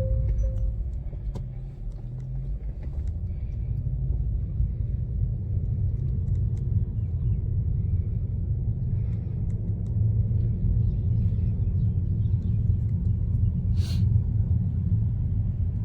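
Steady low rumble of road and tyre noise heard from inside a moving Tesla's cabin, with no engine note. A single sharp click about 14 seconds in.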